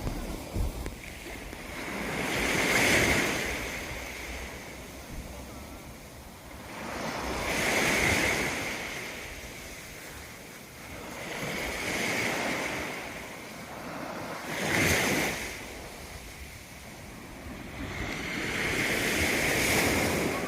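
Sea waves washing in on the shore, the surf swelling and falling away about five times, every four to five seconds, with some wind on the microphone.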